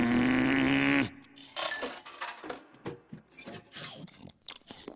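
A cartoon character's strained, held groan, rising slightly in pitch, cuts off about a second in. It is followed by scattered small clinks and rustles.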